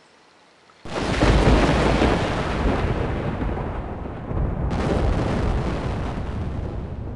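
A loud thunder-like rumble that crashes in suddenly about a second in, with a second crash about halfway through, then rolls on and slowly fades.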